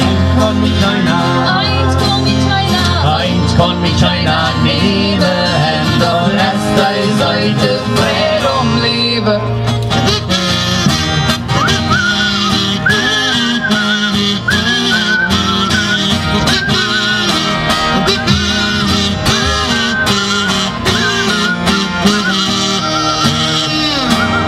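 Live acoustic country-style band music: two acoustic guitars strumming steadily, with a wavering melody line carried over the chords.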